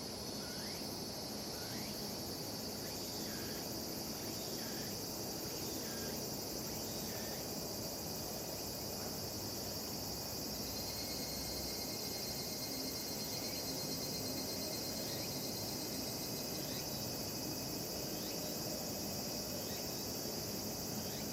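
Chorus of higurashi (evening cicadas) and other cicadas singing in a steady, dense, high-pitched drone. Short rising chirps from another animal come and go over it, and there is a low background hiss beneath.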